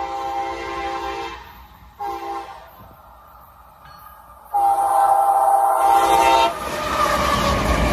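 A CSX GE ES44AH locomotive's multi-chime air horn sounds the grade-crossing signal. A long blast ends about a second and a half in, a short blast comes at about two seconds, and a final long blast runs from about four and a half to six and a half seconds. The rumble of the locomotive and its train then builds as it reaches the crossing.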